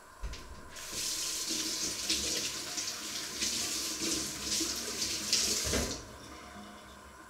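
Kitchen tap running into the sink for about five seconds, then turned off abruptly. A light knock comes just before the water starts.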